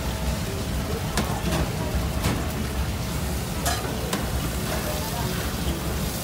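Steady kitchen background noise: an even hiss like food frying in a pan over a low hum, with a few faint light clicks.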